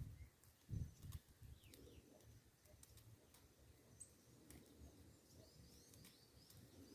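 Near-silent rural quiet with faint bird chirps scattered throughout, and a brief low thump about a second in.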